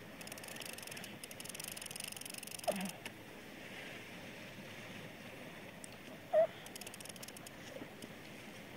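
Overhead fishing reel clicking in quick runs as a fish is played on the line. Two short squeaks, the second one the loudest sound, come about a third of the way in and again about two-thirds through.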